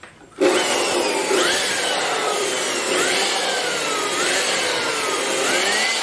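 Handheld electric dust blower switched on about half a second in and running loud, blowing dust out of a laptop's cooling fan; its whine sinks slowly in pitch and then jumps back up, over and over.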